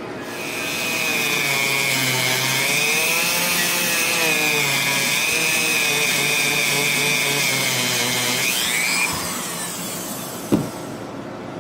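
A handheld power tool grinding a notch into a metal knife part, a steady high whine for about eight seconds before the motor stops. A single sharp click near the end.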